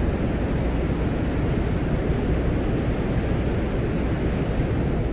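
Venera lander microphone recording from the surface of Venus: a steady hiss of static with what seems to be the soft blowing of the Venusian wind.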